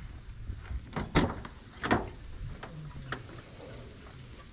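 A 1989 Toyota MR2's door being opened: two sharp latch clicks about a second and two seconds in, then a lighter click a second later.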